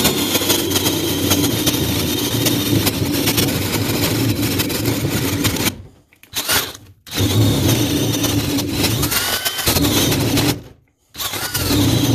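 DeWalt power drill with a long bit boring into the end grain of a log, the motor running in three long bursts with short stops between, its pitch shifting as the bit loads up in the wood.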